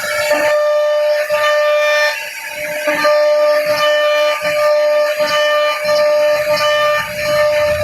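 CNC router spindle whining at a steady high speed while its bit cuts into wood, with short irregular low rumbles as the cutter bites.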